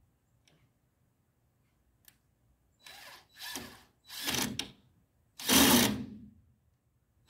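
Handheld power drill running in four short bursts, the last one the longest and loudest, driving screws into the greenhouse's wooden frame.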